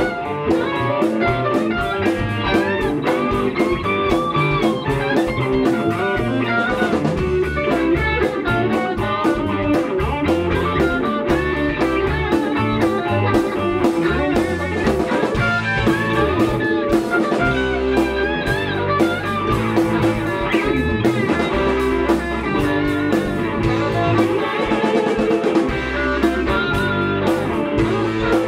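Live rock band playing electric guitars over bass guitar and a drum kit, with held, wavering lead-guitar lines.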